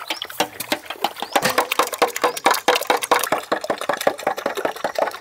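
A spoon beating raw eggs in a large metal basin, clicking against the metal in a quick, steady run of strokes, several a second.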